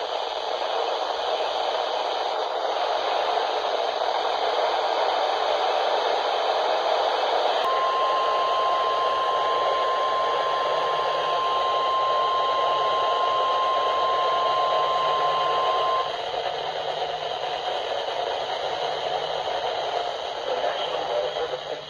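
Weather-radio receiver hiss, with a single steady tone starting with a click about a third of the way in, held for about eight seconds and cutting off sharply. The tone is NOAA Weather Radio's 1050 Hz warning alarm tone, which announces a warning and sets off alert receivers. The hiss carries on after it.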